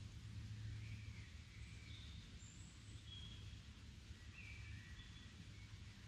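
Faint, scattered short bird chirps, about eight in all, over a steady low background rumble of outdoor ambience.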